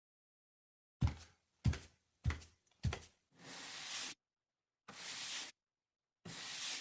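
Four sharp knocks in quick succession, like hammer blows, followed by three longer scraping strokes, typical of work sound effects such as hammering and then sawing or sweeping.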